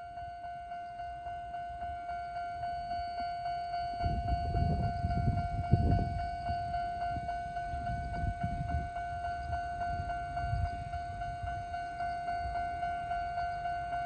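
Japanese railway level-crossing warning alarm ringing, a single electronic bell tone repeated unusually fast, about three strikes a second. A low rumble swells and fades in the middle.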